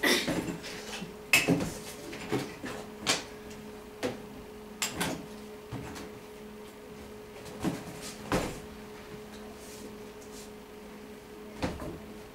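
Props being picked up and set down on a table: a scattered series of knocks, clicks and light rattles, about ten in all, over a steady low hum.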